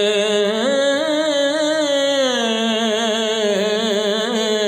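A man's solo voice singing one long, wavering held note in a Punjabi devotional kalam. The pitch rises about a second in and sinks back down a little after two seconds.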